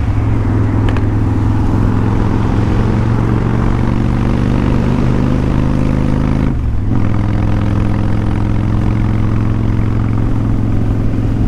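Kawasaki Vulcan 1500 Classic's V-twin engine running steadily at cruising speed, heard from the rider's helmet with a rush of wind and road noise. The engine note briefly thins out about two-thirds of the way through.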